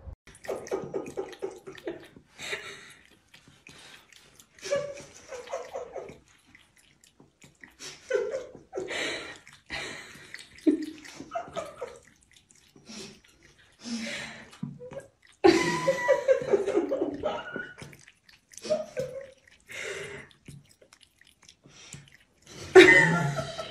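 Water splashing and running in a bathroom sink, in uneven bursts with short quiet gaps.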